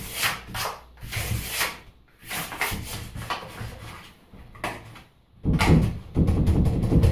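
A plastic card scraping in the gap between a door and its frame as it is worked down toward the latch, in a series of irregular scraping strokes. A louder, busier noise follows in the last second and a half.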